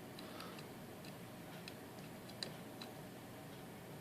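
Faint, irregular small clicks of a lock pick working the pin stack of an Assa Guideline high-security cylinder under light tension, the loudest about two and a half seconds in.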